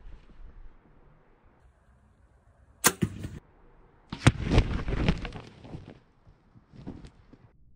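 Bow shot on a tom turkey at close range: a single sharp crack about three seconds in as the arrow strikes. About a second later comes nearly two seconds of loud, rapid wing flapping and thrashing as the hit turkey flushes off.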